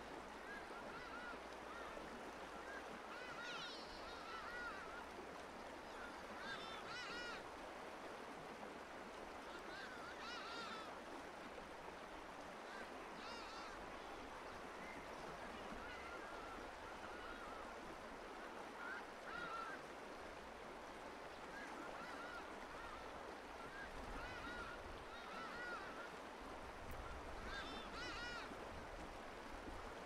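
Wild birds calling: short chirps and wavering calls repeating every second or two over a steady outdoor hiss.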